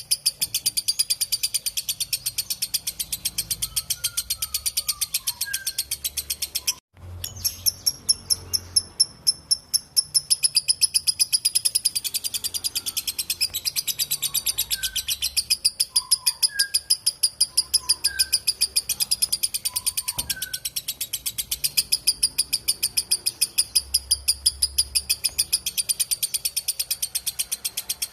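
Lovebird giving its long, rapid, high-pitched chattering trill ('ngekek'), notes repeated in an unbroken stream that cuts out for a split second about seven seconds in and then carries on. Faint short chirps of other birds can be heard underneath.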